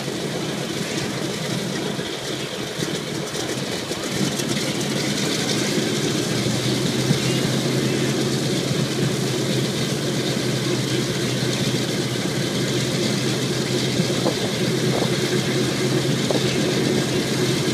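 The radial piston engines of a Boeing B-17 Flying Fortress running steadily on the ground after start-up, growing louder about four seconds in.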